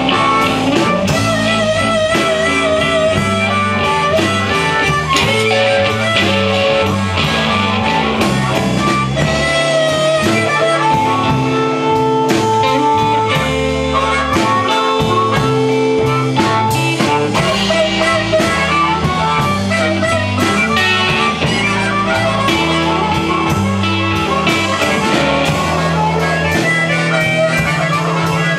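Live blues band: an amplified harmonica, cupped in the hands together with a corded microphone, takes a solo of wavering, bent notes over electric bass, electric guitar and drums.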